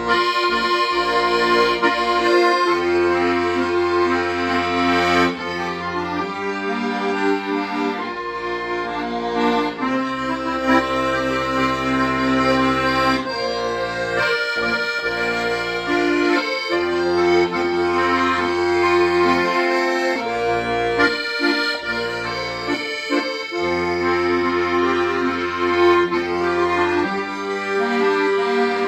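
Accordion playing a melody over held bass notes, the bass changing every few seconds.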